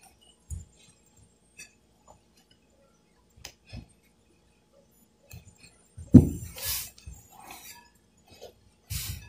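Hands kneading a crumbly grated coconut and condensed milk mixture in a glass bowl, with scattered knocks and clinks of the glass bowl shifting against the table; the loudest knocks come about six seconds in and again near the end.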